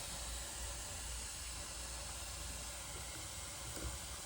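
Steady hiss of steam from a small Bing toy steam engine's boiler as it comes up to pressure.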